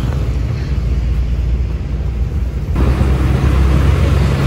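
Bus engine running with a steady low drone and road noise, heard from inside the moving bus. The sound changes abruptly about three seconds in, with more road hiss after.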